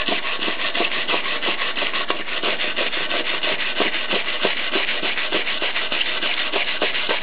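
Wire brush scrubbed rapidly back and forth over a fresh flux-cored (gasless) MIG weld bead, rasping with quick, even strokes. It is cleaning off the flux slag that gasless welding leaves on the weld.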